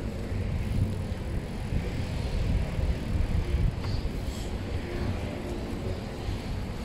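Steady low rumble of a bicycle being ridden over city paving, from wind on the microphone and tyre and road noise, with a couple of faint clicks about four seconds in.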